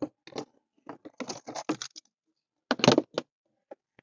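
A string of quick clicks and rattles, with a louder clatter near three seconds in: a hand working the Jeep Wrangler's plastic lower dash trim back into place beside the ignition, with the keys on the ignition key ring jangling.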